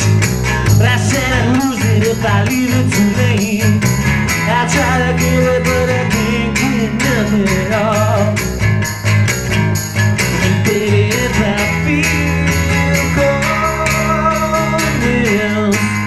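Live acoustic band music: strummed acoustic guitar over held bass notes, with a jingling percussion beat keeping steady time.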